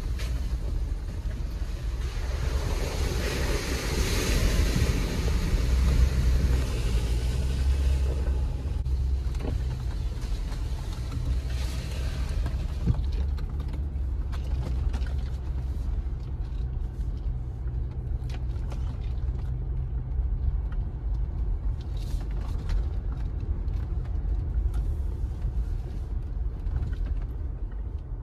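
Jeep Gladiator driving: a steady low rumble of engine and tyres, with a hiss that swells and fades in the first third and scattered knocks and creaks through the rest.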